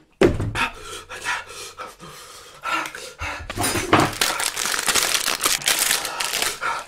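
A man panting hard and fast through an open mouth, with a few moans early on, the breathing getting heavier and louder about halfway through: his reaction to the burning heat of the Paqui One Chip challenge chip.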